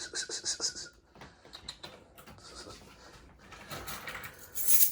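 A dog panting quickly, about six or seven breaths a second, for about a second, then soft scuffling. Near the end a metallic jingling starts, like keys being shaken.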